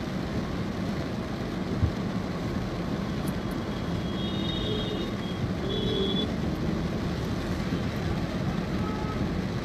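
Steady traffic and road noise from a moving vehicle on a wet road. A short knock comes about two seconds in, and a horn-like beep sounds twice, around four and six seconds in.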